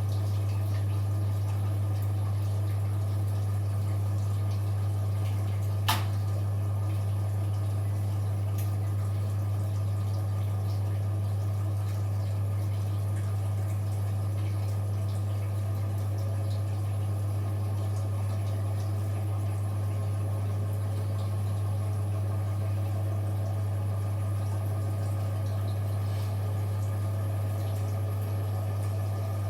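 Washing machine running with a steady low hum and water sounds, with a single sharp click about six seconds in.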